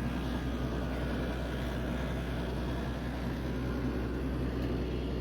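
Caterpillar 315 excavator's Cat 3046 diesel engine idling steadily just after a cold start. It is an old engine with over 15,000 hours that the owner calls pretty tired.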